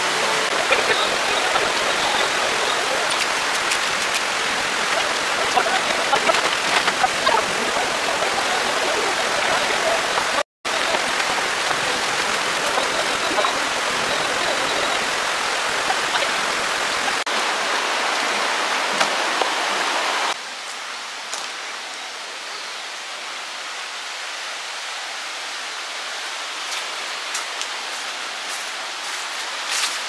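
Valley stream running, a steady rush of water, with a brief dropout about ten seconds in and a drop in loudness about twenty seconds in.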